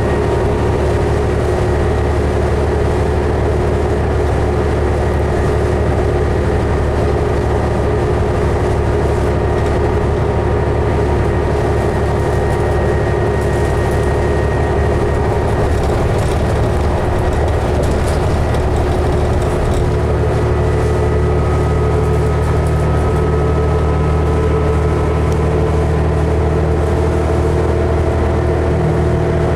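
Ride aboard a 2011 New Flyer D60LFR articulated diesel bus under way: steady engine and driveline drone with a low hum and a few whining tones that drift slowly in pitch.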